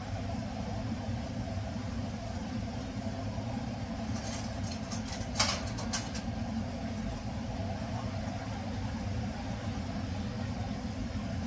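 Steady low hum of a kitchen exhaust fan running over the stove, with a few short clicks about halfway through.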